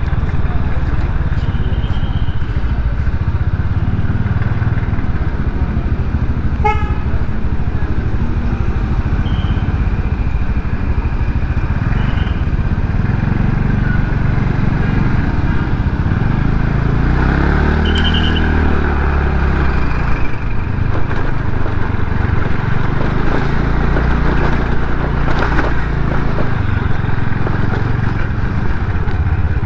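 Motor scooter riding slowly through traffic, its engine running under a steady low rumble of wind on the microphone. Several short horn toots sound over it, and about two-thirds of the way through an engine note rises and falls.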